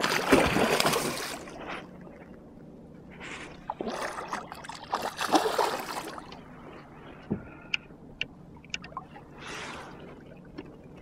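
A hooked muskie thrashing at the surface beside the boat, making loud splashing in bursts, the biggest in the first two seconds and again from about four to six seconds in. A few short sharp clicks follow.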